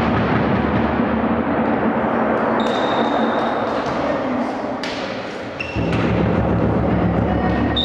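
Spectators drumming and cheering in an echoing sports hall, with a short whistle blast about two and a half seconds in. The din eases briefly a little past the middle, then picks up again.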